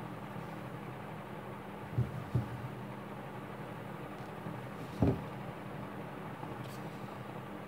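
Steady low background hum, broken by three short dull thumps: two close together about two seconds in and one a few seconds later.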